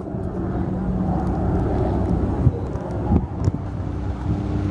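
Light helicopter flying past, a steady low drone from its turbine and rotor, with some wind on the microphone.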